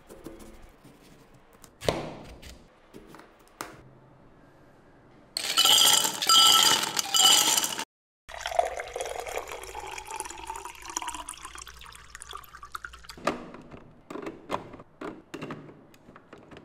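Food-stall work sounds: clinks and knocks of dishes and utensils, and liquid being poured or ladled. A few seconds in, a loud, noisy rush lasts about two and a half seconds and cuts off suddenly.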